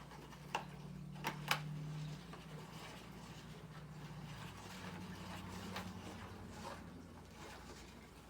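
Spirograph drawing: a pen scratching on paper as a plastic gear is turned around inside a ring, with a few sharp plastic clicks in the first two seconds, over a steady low hum.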